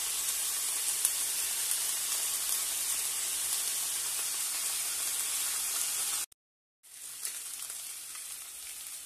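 Tuna head and fillet pieces sizzling in hot oil in a frying pan, a steady high hiss. A little after six seconds it drops out abruptly for about half a second, then comes back quieter.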